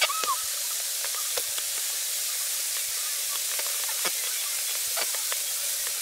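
A steady hiss with many small scattered ticks and pops throughout, and a brief high chirp right at the start.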